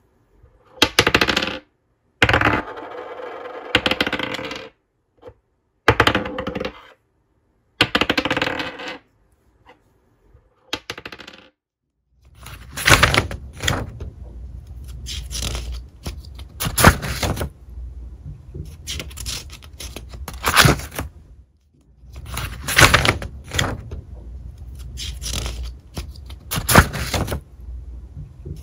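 Coins dropped several times onto a hard floor, each hitting with a ringing clink and one spinning and rattling for a couple of seconds before settling. Then, from about twelve seconds in, the pages of a spiral-bound notebook are flipped over one after another, paper rustling and flapping.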